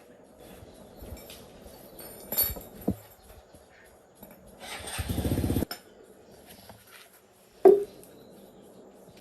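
Metal workshop handling noises: a couple of light knocks, then a loud rapid rattling burst of about half a second that cuts off abruptly, and a sharp metal clank that rings briefly near the end.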